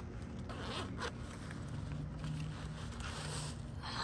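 Zipper on a pickleball paddle bag being pulled open in several short strokes.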